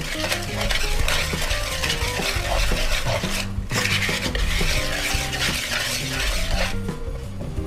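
Wire whisk stirring flour and coconut milk into a stiff batter in a plastic mixing bowl: a fast, continuous scraping rattle that breaks off briefly about three and a half seconds in and stops a little before the end.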